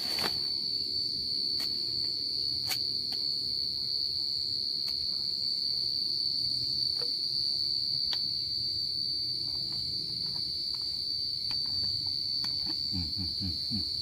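Night insect chorus: a continuous, steady high-pitched trill, with a few faint clicks over it.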